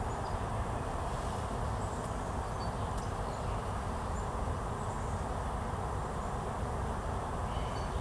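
Steady outdoor background noise, an even rumble and hiss, with a few faint, brief high bird chirps scattered through it.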